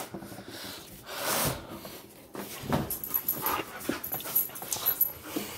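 A dog panting and snuffling in noisy breaths, with louder huffs about one and a half and nearly three seconds in, then quicker, lighter puffs.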